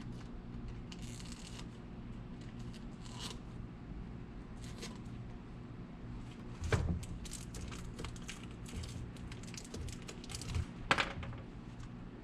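Hand work on a soccer shoe's lining: scattered short scratchy strokes of material being handled, coming thicker in the second half, with two louder knocks, one about halfway through and one near the end. A steady low hum runs underneath.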